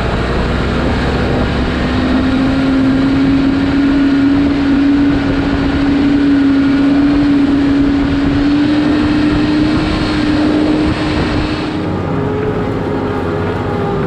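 Massey Ferguson 8730S tractor's six-cylinder diesel engine running steadily under load while pulling a six-furrow plough, its drone creeping slightly higher in pitch. About twelve seconds in the sound changes abruptly to a duller, lower engine note.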